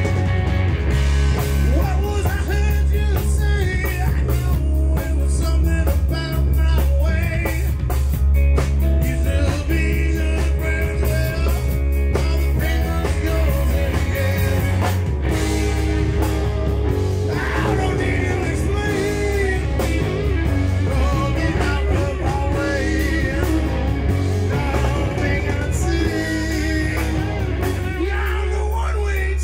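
Live band playing a blues-rock song on drum kit, electric guitars and bass, with a heavy low end.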